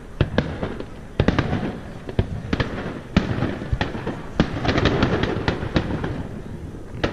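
Fireworks bursting overhead: a rapid, irregular series of sharp bangs with rumbling echoes, thickening into a dense volley of cracks about four and a half seconds in.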